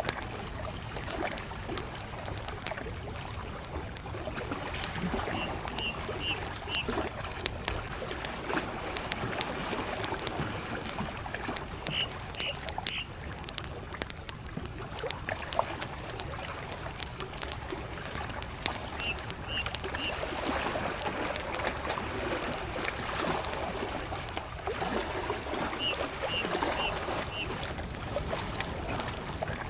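Campfire crackling with many sharp pops over gentle lake waves. A distant bird calls in short runs of three or four high notes, four times, about every six or seven seconds.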